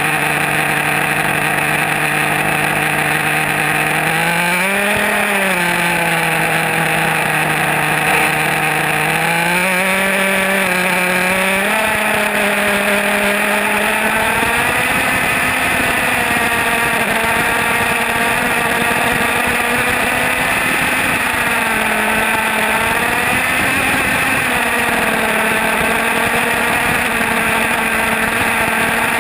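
HPI Savage X SS RC monster truck's small nitro glow engine running, heard close up from the truck itself. Its pitch rises and falls with the throttle twice in the first twelve seconds, then holds higher, wavering slightly as the truck drives.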